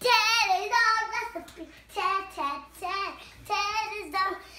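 A young girl singing in a high voice, in short phrases with brief breaks between them.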